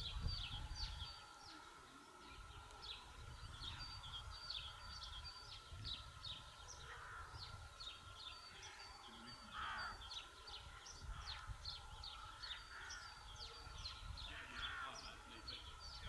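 Small birds chirping busily throughout, with a few louder, lower calls now and then. Under them are a faint steady hum and gusty wind rumble on the microphone.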